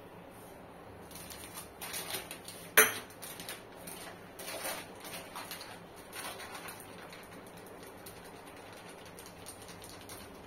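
Light clicking and clattering of kitchen utensils, with one sharp knock about three seconds in, then dying down to quiet room noise.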